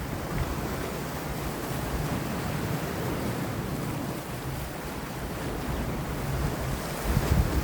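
Sea waves washing against rocks, a steady surf wash with wind. A gust of wind rumbles on the microphone about seven seconds in.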